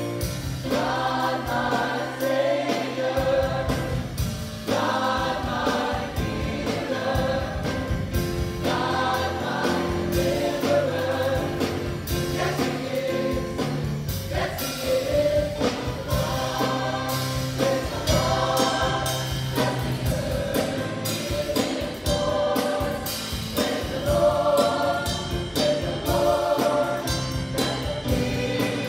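High school gospel choir singing in harmony in phrases of a few seconds, over a band's sustained bass notes and drums.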